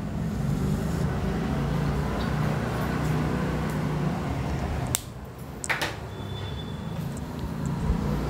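Steady low background hum, with a sharp click about five seconds in, after which the hum drops a little, and a second click shortly after.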